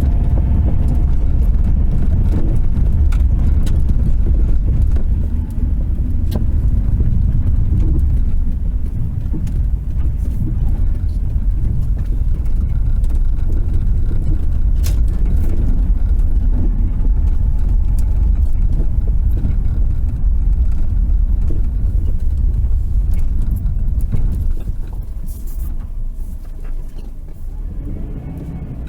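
Inside a 1993 Subaru Impreza on the move: a steady low road and engine rumble, with a few irregular sharp pops from the middle of the dash. The popping is an unidentified fault that only appears once the car is warmed up after highway driving and then slowed down. The rumble eases off near the end.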